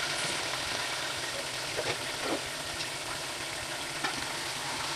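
Raw chicken pieces sizzling steadily in hot oil in a large aluminium pot, with a few light clicks of a metal spoon against the pot.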